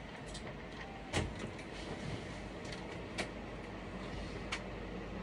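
Steady low background noise with a few sharp knocks and clicks, the loudest about a second in and two fainter ones later.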